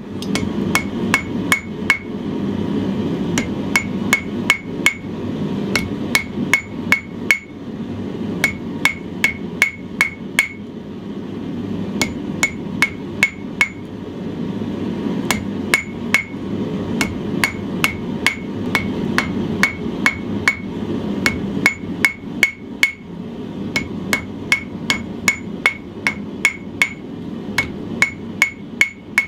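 Hand hammer striking a red-hot steel knife guard on the horn of an anvil, drawing it out and tapering it: quick runs of several blows with short pauses between, each blow ringing. A steady low roar runs underneath.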